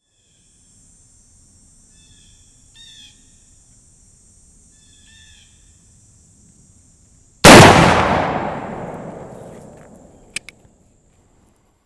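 Birds chirping a few times against a steady high hiss, then about seven seconds in a single shot from a .50-calibre Lyman Plains percussion pistol loaded with black powder, its report echoing and dying away over about three seconds.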